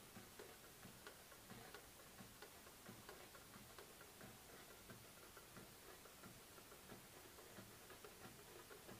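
Near silence with a faint, regular ticking, about three ticks a second.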